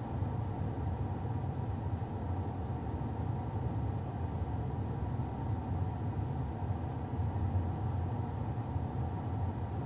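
Steady low rumbling noise of a car on the move, like road and tyre noise heard inside the cabin, even throughout with no engine note standing out.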